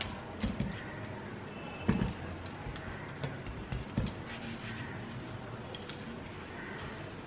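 Hands patting and pressing a sheet of rolled-out dough on a silicone baking mat: a handful of soft thumps and light taps in the first four seconds, over steady room noise.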